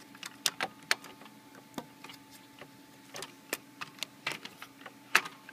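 Handling noise: irregular light clicks and knocks of hands and a hand-held camera brushing against the plastic Apple IIe case and the boards inside it, with one sharper knock a little past five seconds in, over a faint steady hum.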